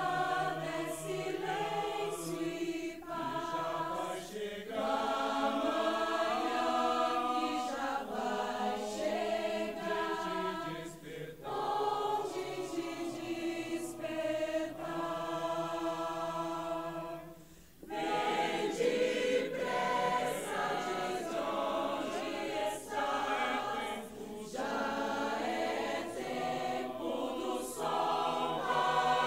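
Choir of students singing, phrase after phrase, with a short break between phrases about two-thirds of the way through.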